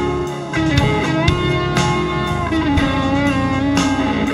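Instrumental introduction of a Chinese pop ballad: a held, gliding lead melody over a full band backing, with a drum beat about twice a second.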